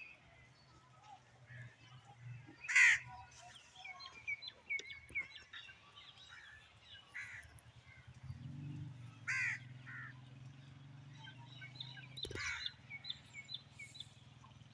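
Outdoor bird calls: three loud, harsh calls, with many small birds chirping throughout and a low steady hum underneath that grows from about halfway through.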